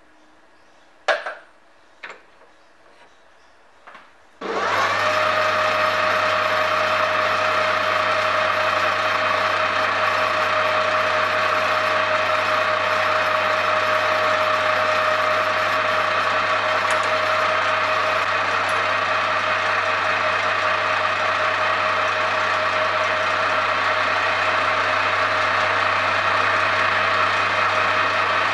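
A few light knocks as tooling is handled, then a metal lathe starts about four seconds in and runs at a steady speed: motor and gearing making a steady hum with a constant tone, the four-jaw chuck spinning while a twist drill in the tailstock chuck is fed into the workpiece.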